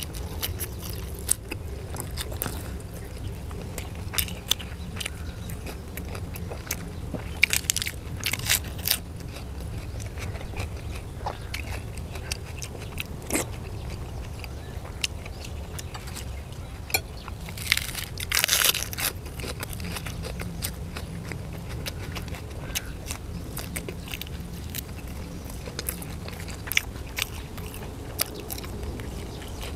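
Chewing and biting grilled sour sausage: wet mouth clicks and smacks, with short crackly, crunchy bites around 8 seconds in and, loudest, around 18 seconds in.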